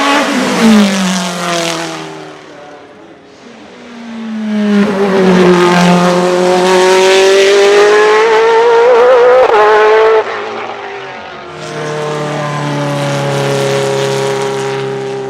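Naturally aspirated GT1-derived racing car engine: it passes by with its pitch falling, then revs climb in one long pull under acceleration that cuts off abruptly about ten seconds in, followed by a steadier, lower engine note.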